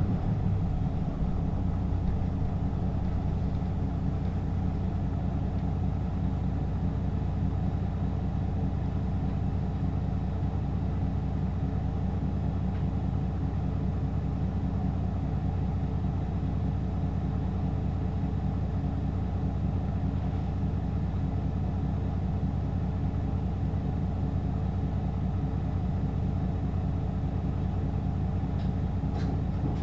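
Hino LKG-KV234N3 city bus's diesel engine idling steadily, heard from inside the bus, with a low, even rumble and no revving.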